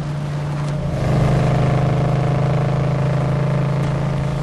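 Car engine running hard at speed, a steady low note that gets louder about a second in.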